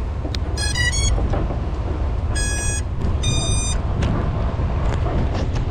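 FPV quadcopter's motors beeping: three quick rising tones, then two longer single beeps about a second apart, over a steady low rumble of wind on the microphone.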